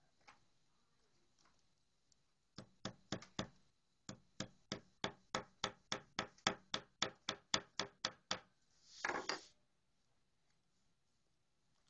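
Claw hammer tapping the corner joint of a wooden canvas stretcher frame to drive it together: four quick taps, then a steady run of about eighteen taps at roughly four a second, followed by a short noisy scrape.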